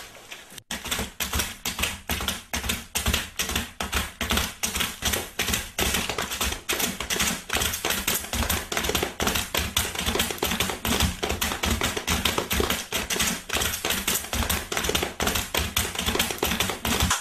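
Foley running footsteps made in a square box filled with gravel: a quick, even patter of short knocks that starts just after a brief pause.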